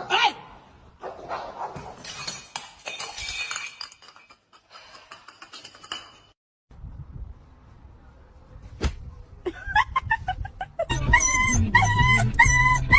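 A dog whimpering and yipping, a quick run of repeated high cries in the last few seconds, after several seconds of scattered noise.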